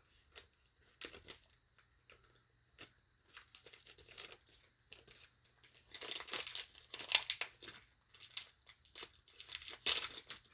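Trading-card packaging crinkling and rustling in short, uneven spurts as cards are handled, thickest about six seconds in and again near the end.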